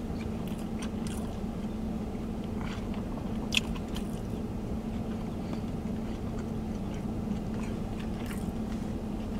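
Steady hum inside a vehicle's cab with its engine running, under faint wet mouth sounds of someone tasting a milkshake, and a small click about three and a half seconds in.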